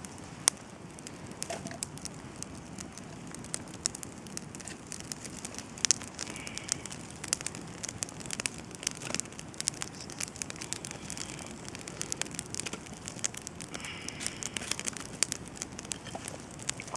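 Wood campfire burning, with irregular sharp crackles and pops over a steady hiss from moisture boiling out of damp logs.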